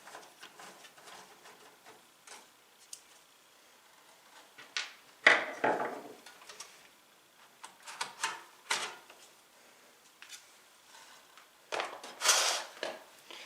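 Handling noises of desktop computer hardware: scattered clicks, knocks and rubs of parts and case being moved by hand, with a sharper knock about five seconds in and a louder scrape near the end.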